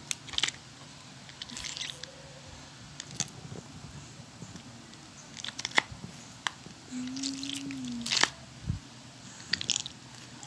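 Mesh squishy stress ball being squeezed and kneaded by hand: short bursts of crackling, squelching noise every second or two as the gel beads push out through the net.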